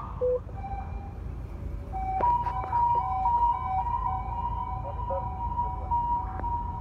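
Vehicle siren in two-tone hi-lo mode, alternating between two pitches, starting about two seconds in, over the low rumble of a vehicle engine.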